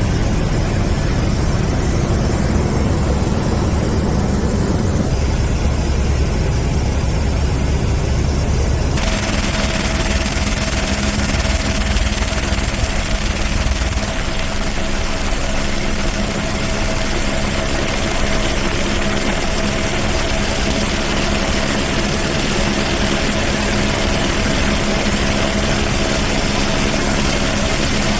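A steady engine running. About nine seconds in the sound switches abruptly from a deep rumble to a steadier sound with several held tones.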